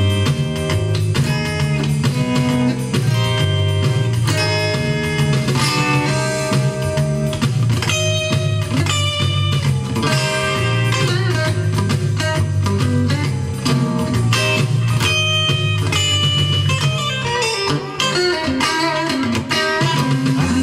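Electric guitar playing an instrumental break of a rockabilly tune, single-note lines over a moving bass line, with no vocals.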